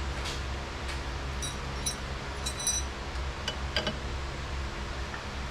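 Small metal drum-brake parts clinking as they are handled: several light clinks with a short bright ring, then a few sharper ticks, over the steady hum of a shop fan.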